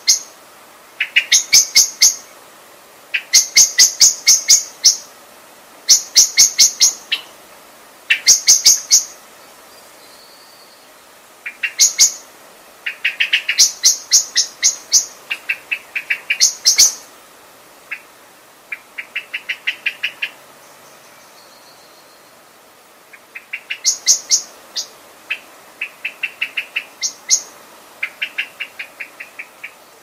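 Common blackbird calling: fast trains of sharp, high notes in bursts of about a second, repeated with short pauses, some bursts higher and some lower in pitch.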